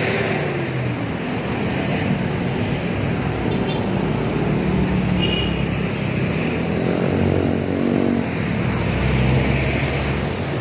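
Busy road traffic: the engines of passing vehicles running, with a steady rumble of road noise.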